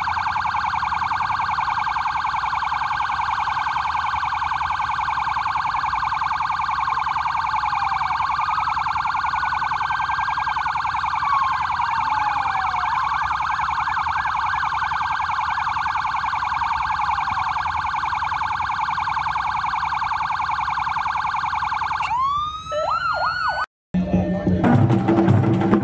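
Several motorcade sirens sounding together: a fast, steady warble with wailing sirens rising and falling over it. They wind down about four seconds before the end. After a brief cut, drumming starts.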